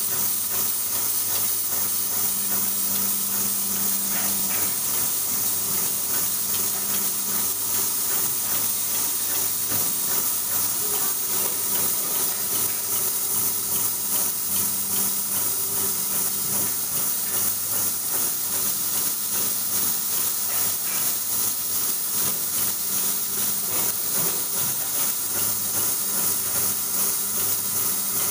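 Automatic aerosol actuator and valve assembly machine running steadily: a constant high hiss over the low, even hum of its vibratory bowl feeders, with faint occasional ticks of parts.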